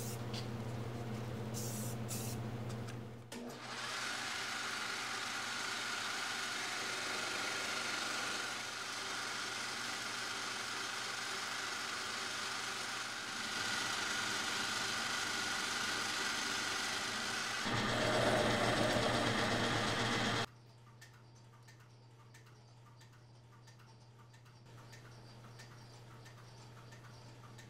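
A few seconds of spray painting with a steady hum, then a metal lathe running and turning a small steel part: an even machine noise that drops to a quieter motor hum about twenty seconds in.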